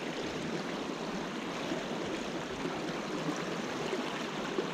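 Steady flow of water through a spring creek's run: an even, unbroken rush.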